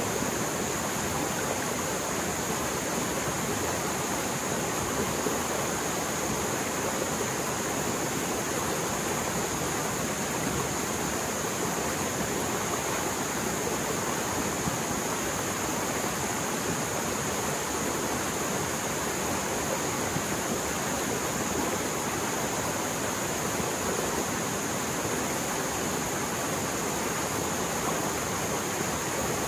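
Mountain stream in spate after heavy rain, its water rushing fast in a steady, unbroken roar.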